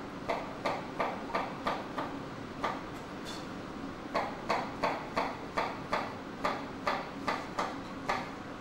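Knife chopping peeled bananas into small pieces: a steady tapping about two to three times a second, stopping for about a second partway through.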